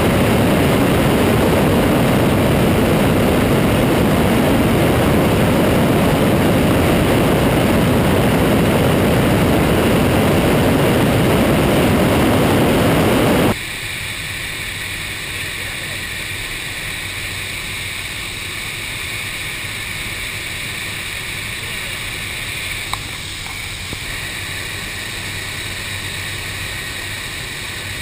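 Cessna 208 Caravan's turboprop engine in flight, heard with loud rushing wind from outside under the wing. About halfway through it cuts abruptly to the quieter, steady drone of the engine inside the cockpit, with a low hum.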